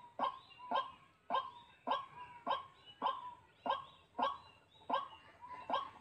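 White-breasted waterhen (dahuk) calling: a short, sharp call repeated evenly about twice a second.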